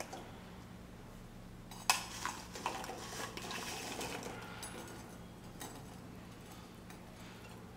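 Fried gulab jamun balls tipped from a bowl into a pan of sugar syrup, with a few sharp clinks and knocks of the bowl and a metal slotted spatula against the pan. The loudest knock comes about two seconds in, then the sound thins to light clinking.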